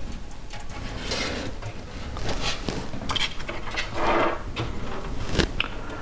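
Small plastic clicks and rustles from front-panel connector leads being handled and pushed onto a motherboard's pin header, with a few sharp ticks spread irregularly through it.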